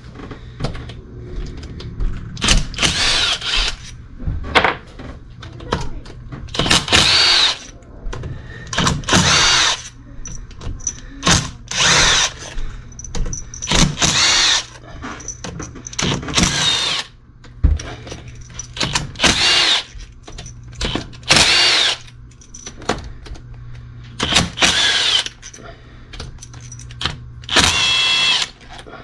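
Power drill run in about fourteen short bursts, its motor whine bending up and down within each burst, over a steady low hum.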